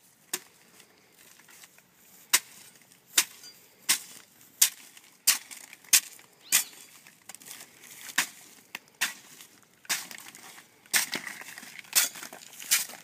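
Blade of a long-handled coa chopping into a harvested blue agave, cutting the spiky leaves off the heart: over a dozen sharp strikes, coming about every three-quarters of a second, then more unevenly near the end.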